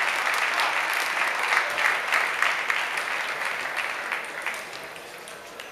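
Spectators clapping, a steady round of applause that fades away over the last second or two.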